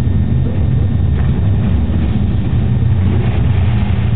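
Classic rally car's engine running, a steady low drone.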